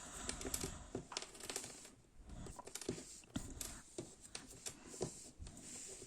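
Small game tiles being set down face down on a table one after another: faint, irregular light clicks and taps.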